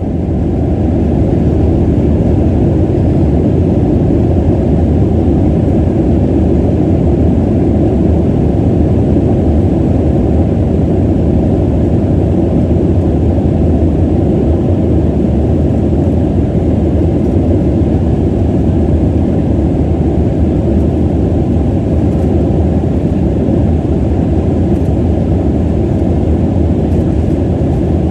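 Steady low rumble inside an airliner cabin as the jet taxis on the ground: engine noise and wheel rumble, even in level, with a faint constant hum.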